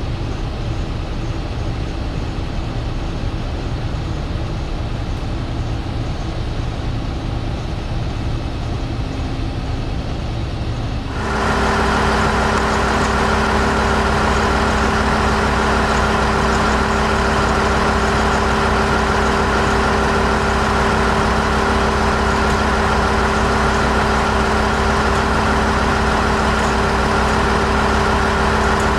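Steady low rumble inside a railcar. About eleven seconds in it gives way abruptly to a louder, steady drone with a constant hum from a Ferrovia Centrale Umbra ALn 776 diesel railcar's engine running close by.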